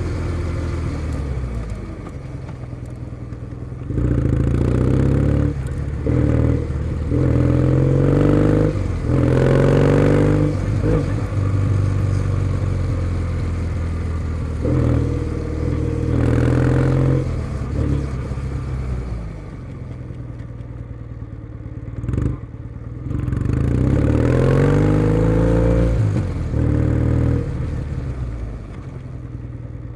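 Kawasaki W650 676 cc air-cooled parallel-twin engine running through a POSH W1 full exhaust under riding load. It pulls up in rising surges broken by short drops as it shifts gears, eases back to a lower steady note about twenty seconds in with a sharp tick, then pulls up again.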